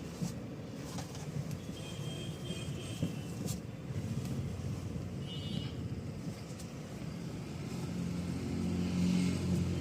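Mahindra XUV300 idling while the steering wheel is turned quickly from side to side. There is no creak from the steering column, which is the sign that its repair and re-greasing have cured the earlier squeak. The low engine hum grows stronger near the end.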